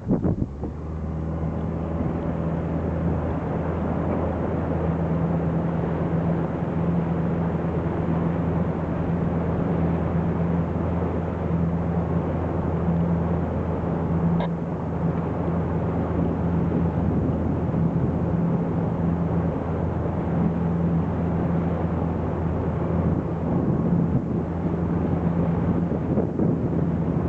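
A motorboat's engine starts running about half a second in and then runs steadily at constant speed with an even low hum, over wind and water noise.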